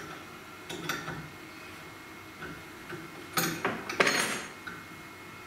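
Metal spanners clinking against the CNC spindle's collet nut as it is loosened for a bit change: a few short metallic clicks and clinks, the loudest about three and a half to four seconds in.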